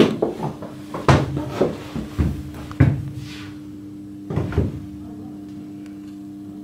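A string of irregular clunks and knocks, most in the first three seconds and another pair about four and a half seconds in, over a steady low machinery hum in a ship's engine room.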